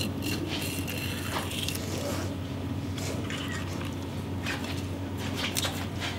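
A knife cutting into a whole red sea bream (tai) on a wooden board, with scattered crunching and scraping sounds as the blade works through scales, flesh and fin bones behind the head. A steady low hum runs underneath.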